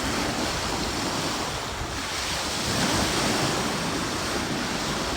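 Ocean surf washing onto the beach, a steady rushing wash that swells a little about three seconds in, with wind buffeting the microphone.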